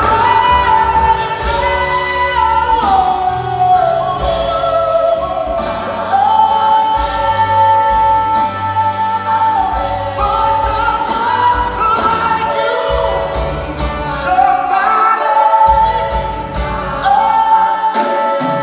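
Live band playing a vintage jazz-style pop cover: singers holding long notes in harmony over piano, upright bass and drums.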